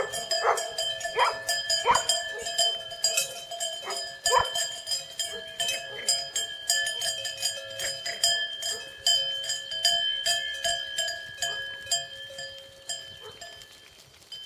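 Many bells on a walking flock of sheep and goats, clanking and ringing unevenly in overlapping tones, with a clatter of hooves on gravel; the sound fades near the end as the flock passes.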